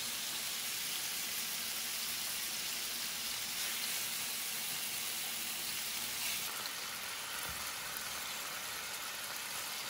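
Sirloin steak pieces sizzling steadily as they sear in hot avocado oil in a non-stick skillet, easing slightly after about six seconds.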